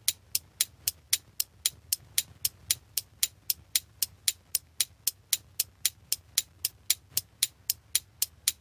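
Clock ticking sound effect: sharp, even ticks at about four a second, marking a timed rest countdown.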